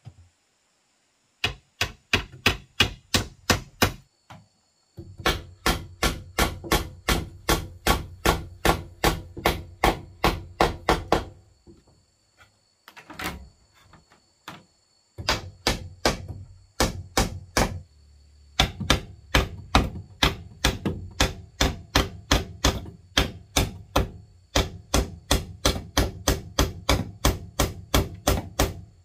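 Hammer driving nails into a wooden trim board on a plank wall. The blows come in quick runs of about three or four a second, with short pauses between the runs.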